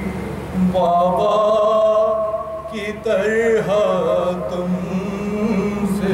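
A man's solo voice chanting an Urdu salam, a Shia devotional lament, drawing out long wavering notes.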